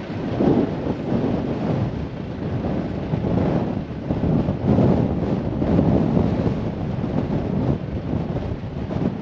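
Wind buffeting the microphone: a loud, low, unpitched noise that swells and fades in irregular gusts.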